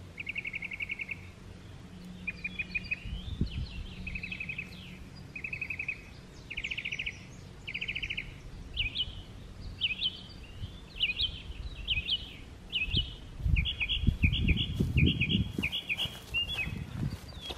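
Songbirds singing: a series of short, even trills repeated every second or two, then a run of quick downward-slurred notes. Near the end, close footsteps and rustling in grass and straw mulch.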